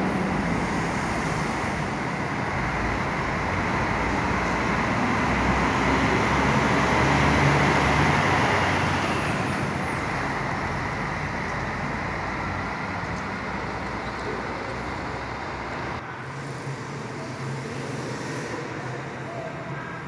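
Diesel bus engine running as a bus moves through, growing louder to about eight seconds in and then fading away, over a steady wash of road noise.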